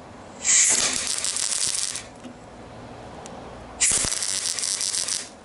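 MIG welder tacking a steel patch panel in place: two crackling bursts of about a second and a half each, the second starting about four seconds in.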